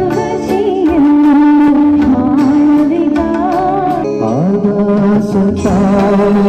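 A woman singing into a microphone with live instrumental accompaniment and regular percussion, heard through the hall's amplification. She holds long notes with vibrato, and about four seconds in the melody slides up into a new held note.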